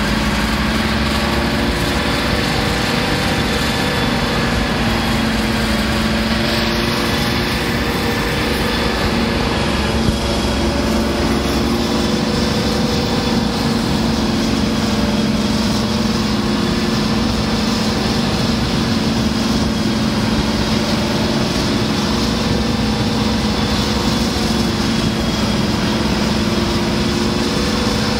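Class 55 Deltic diesel locomotive's Napier Deltic two-stroke engines running steadily as the train moves, a continuous thrash with constant pitched whine and hum. A single brief tick about ten seconds in.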